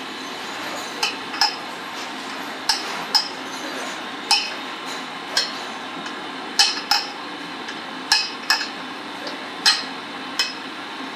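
Sharp, ringing metal-on-metal clinks from steel hand tools worked on a tyre spreader holding a bus tyre open, coming mostly in pairs every second or two.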